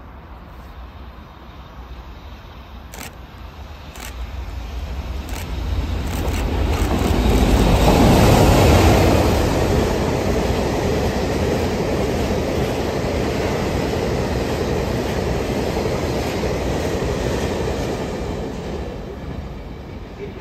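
JR Freight EF65 electric locomotive hauling a train of tank wagons through a station at speed: the rumble builds to its loudest as the locomotive passes about eight seconds in, then the wagons rumble and rattle past steadily before fading near the end.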